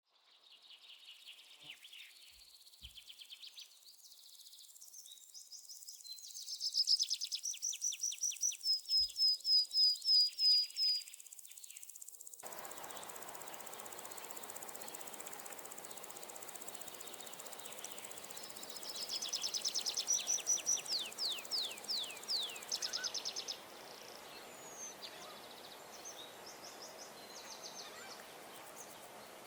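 Savannah wildlife at dusk: birds and insects calling in series of high, quickly repeated chirps and trills that rise and fall in loudness. About twelve seconds in, a steady background hiss comes in abruptly, and further chirping series follow over it.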